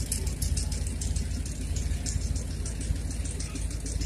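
A vehicle engine running low and steady as it pulls a rubber-tyred flatbed farm wagon past, with a fine, quick clicking rattle over it.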